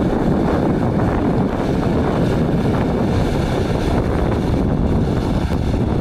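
Combine harvester running steadily through the crop, a low, even mechanical rumble with wind buffeting the microphone.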